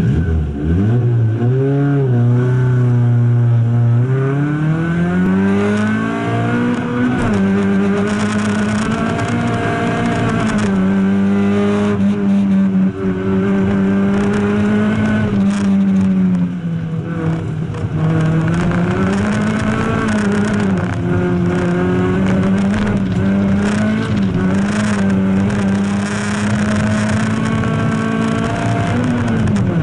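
Race car engine heard from inside its stripped, roll-caged cabin, driven hard on a hill climb run. The revs climb from low near the start, pull up steadily, drop sharply at a shift about seven seconds in, then stay high with repeated dips and rises for shifts and corners.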